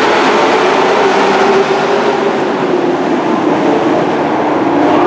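A pack of dirt-track race trucks at speed, their engines running together in a loud, steady drone, swelling again near the end as the field comes past.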